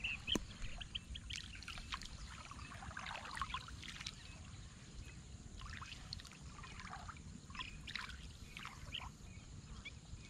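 Shallow water sloshing and splashing irregularly around the legs of a person wading through it barefoot.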